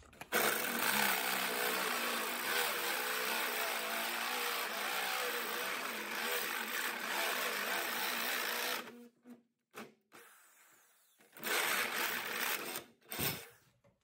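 Corded electric drill, in plain drill mode rather than hammer, boring a large twist bit through a metal bracket clamped in a vise. It runs steadily under load for about eight and a half seconds, then stops, followed by a few short handling sounds.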